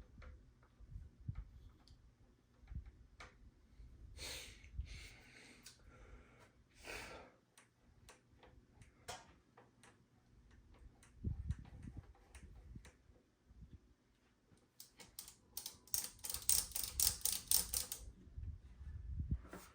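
Controls of a Sansui QRX-7500 receiver being turned and worked in after contact cleaner: scattered clicks and handling knocks, two short hisses, then a fast run of ratcheting clicks for a few seconds near the end.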